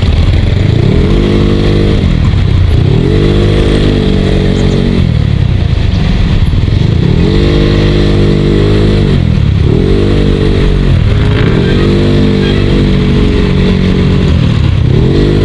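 Yamaha Mio Sporty scooter's small single-cylinder engine running on the road. It rises in pitch, holds and drops back about six times as the throttle is opened and closed. The owner says the engine's crankshaft side bearing has worn loose.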